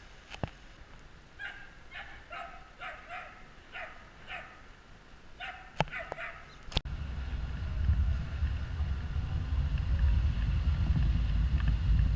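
A dog barking over and over, two or three short barks a second, for about five seconds. Then, about two-thirds of the way in, a sudden switch to loud low rumble: wind buffeting a microphone mounted on the side of a slowly moving car, with road noise.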